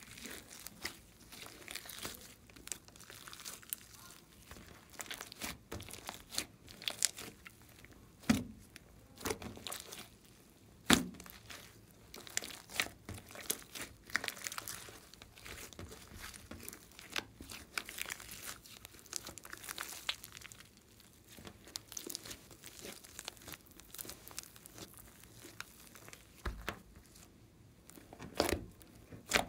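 Hands kneading and pressing a large lump of slime mixed with clay: sticky crackling and clicking as it is squeezed and folded, with a few louder pops.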